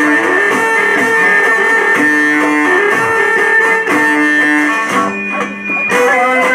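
Instrumental music led by a plucked string instrument playing a melody of held notes. It thins out briefly about five seconds in, then picks up again.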